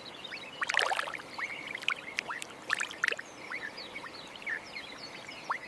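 Birds calling: many short, high chirps and whistles, several sweeping downward in pitch, scattered irregularly over a faint steady hiss.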